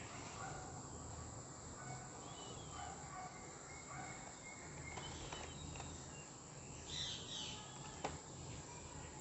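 Quiet background with a steady low hum and faint short bird chirps, and a few light clicks as a cardboard model box with a plastic window is handled and turned.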